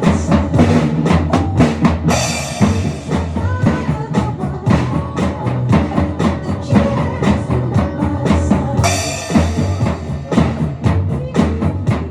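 Music with a drum kit playing a busy, steady beat under pitched instruments, and a crash cymbal struck about two seconds in and again later on.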